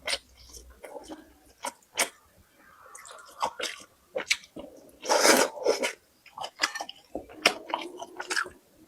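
A person chewing food close to the microphone, with many short, sharp wet clicks and smacks, and a louder, rougher stretch of chewing about five seconds in.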